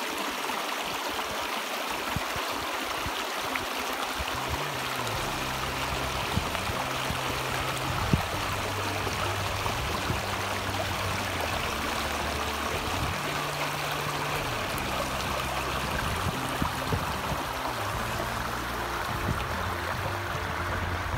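Shallow stream running over rocks: a steady rush of water, with low held tones that shift in steps underneath from about four seconds in.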